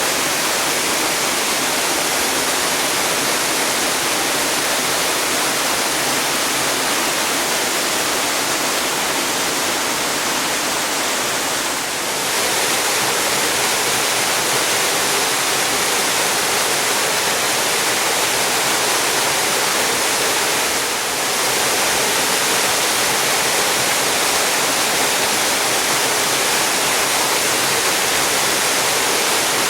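Steady, loud rush of a mountain waterfall, with two short dips in level, about a third and two-thirds of the way through.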